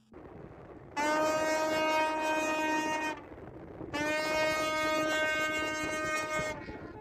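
Tugboat horns sounding two long blasts in celebration, each about two and a half seconds with a short gap between them, over a steady low rumble.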